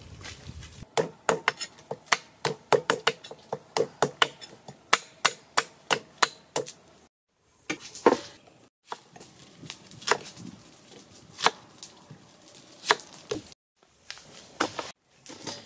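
Knife chopping ginger on a cutting board: a quick run of sharp strokes, about four a second, for several seconds. After brief breaks a few single, spaced-out chops follow.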